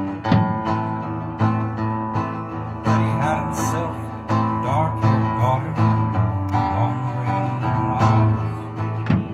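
Acoustic guitar strummed in a steady rhythm, played live through a small PA.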